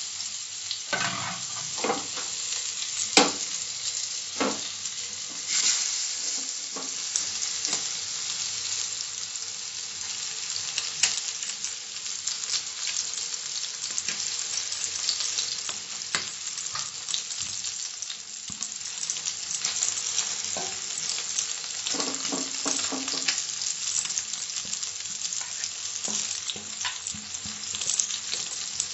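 Oil sizzling and crackling steadily as spice-stuffed, flour-coated mackerel shallow-fry in a frying pan, with a few sharper clicks as the fish are laid in and moved.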